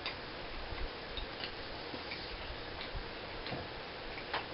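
A person chewing a large mouthful of gum with the mouth closed: soft, irregular wet clicks, a few a second or fewer, over a steady low hiss.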